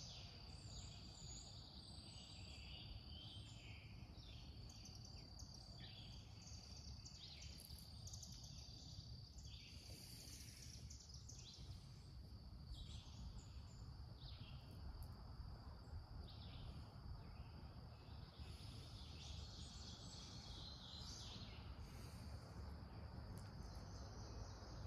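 Faint outdoor ambience: a steady, high-pitched insect drone, loudest in the first half, with scattered bird chirps throughout over a low background rumble.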